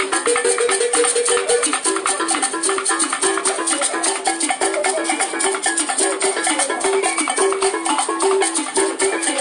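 Upbeat Congolese-style percussion music: a fast, even shaker rattle over a short plucked-string riff that repeats.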